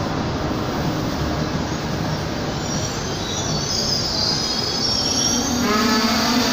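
Frecciarossa high-speed train rolling slowly along the platform track with a steady rumble. About halfway in a thin high squeal starts, and near the end a loud, sudden squeal with several tones joins it, the wheels squealing as the train pulls through the station.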